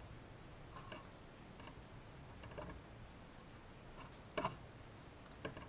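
Quiet handling of woven cords being pulled and tightened: faint rubbing with a few irregular light clicks, the sharpest about four and a half seconds in.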